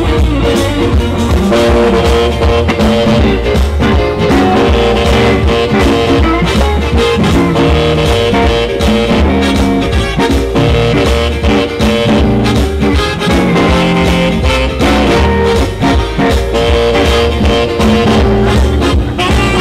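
Band music with guitar over a steady beat, playing on without a break.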